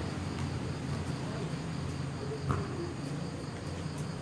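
Crickets chirping steadily over a low background hum and faint voices, with one sharp hit about two and a half seconds in, a volleyball being struck.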